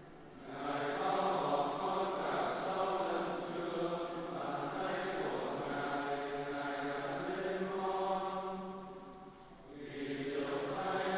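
Voices singing a slow Vietnamese Catholic hymn, long held notes in phrases, with a short break between phrases about nine seconds in.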